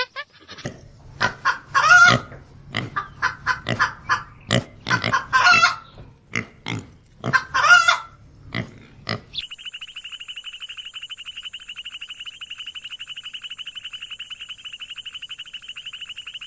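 Farm animals making short, repeated calls for about nine seconds. An abrupt cut then brings in a steady, fast-pulsing high trill.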